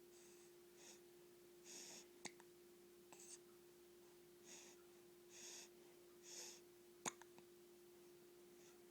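Baby hiccuping: two short, sharp hiccups, about two seconds in and again about seven seconds in, the second the louder, with soft breaths in between.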